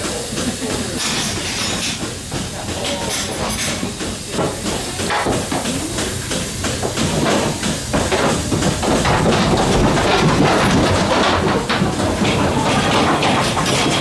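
Goat milking machine running in a milking parlour: a steady hiss with clicking, growing somewhat louder about halfway through.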